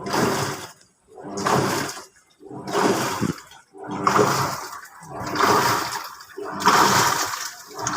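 Panasonic top-load washing machine running its pulsator in water, swishing back and forth in regular surges about every 1.3 seconds with a low motor hum in each stroke.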